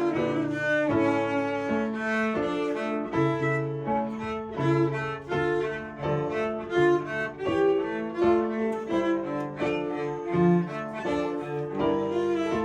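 Bowed string ensemble, cellos and violins, playing a brisk piece in many short notes with several parts moving together.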